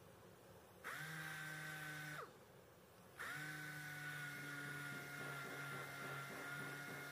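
Random orbital sander sanding body filler on a car panel. Its motor spins up with a steady high whine about a second in and winds down a second later, then starts again about three seconds in and keeps running.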